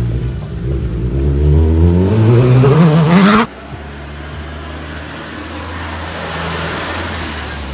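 Sport motorcycle engine revving up as the bike accelerates, its pitch climbing for about three seconds before cutting off abruptly. A quieter, steady engine idle follows.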